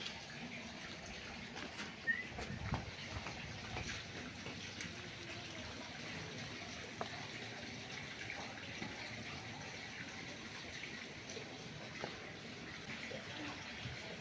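Faint rustling and scattered light ticks of hands working loose potting mix into black-painted bamboo pots, over a steady low hiss.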